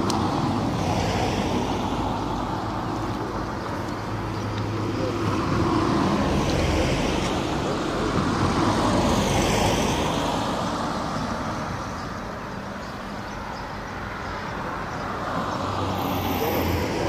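Road traffic: several cars passing close by one after another, their tyre noise swelling and fading about four times.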